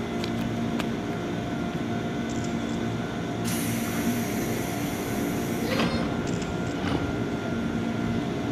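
JR 185-series electric train standing at the platform, its onboard equipment giving a steady hum. A hiss of compressed air starts about three and a half seconds in and lasts about two seconds, followed by a few short clicks.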